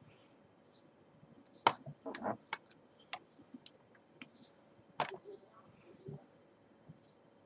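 A quick run of sharp clicks and taps, the loudest about a second and a half in and another about five seconds in, with fainter ticks between.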